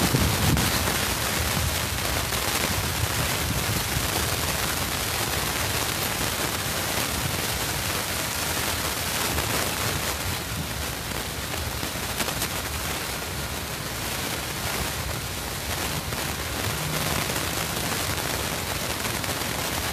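Freight train of covered hopper cars rolling steadily past: a constant rush of steel wheels on rail, with fine clicking from the wheels throughout.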